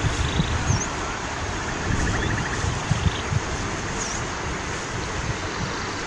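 Outdoor ambience: wind rumbling on the microphone over a steady hiss, with a few faint, short, high chirps.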